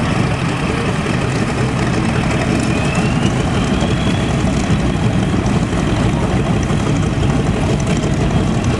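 North American B-25 Mitchell's two Wright R-2600 radial engines running steadily at low taxi power as the bomber rolls past, propellers turning. A faint rising whistle sounds briefly about three seconds in.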